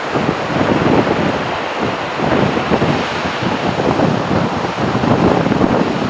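Heavy ocean surf breaking and churning in continuous waves, with wind noise on the microphone.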